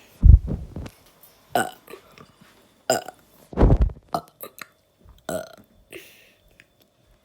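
A person burping repeatedly, about six burps in all. The two loudest and deepest come just after the start and about three and a half seconds in, with shorter, quieter burps between and after.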